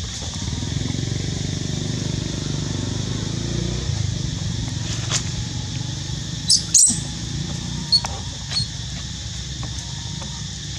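Outdoor ambience: a steady low rumble under a steady high hiss, with a few short, high squeaks a little past halfway and a couple of faint clicks.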